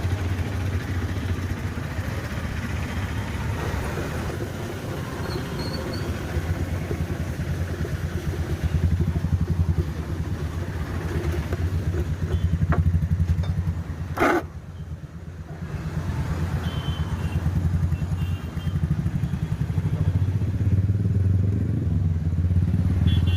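A small engine running steadily with a fast low throb, amid street noise. A sharp knock about fourteen seconds in.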